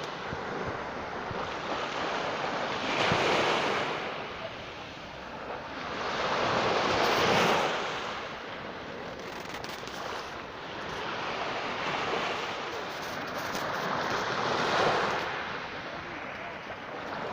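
Mediterranean sea waves washing in, the surf swelling to a peak and falling back roughly every four seconds.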